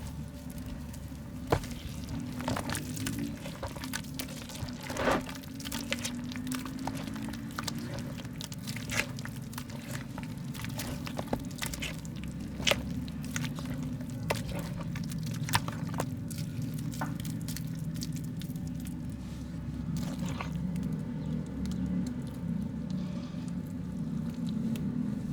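Soft mud being crumbled by hand: irregular crisp cracks and crumbling, with a few louder snaps, over a steady low hum.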